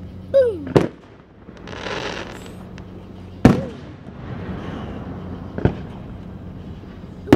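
Aerial fireworks shells bursting: a falling whistle ending in a sharp bang, a crackling hiss, then a loud bang in the middle followed by crackle, and two more bangs, the last near the end.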